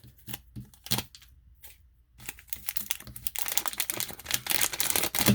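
A Topps Chrome trading-card booster pack's wrapper being torn open and crinkled by hand. A few light clicks and taps come first. From about two seconds in there is a dense crinkling that is loudest near the end.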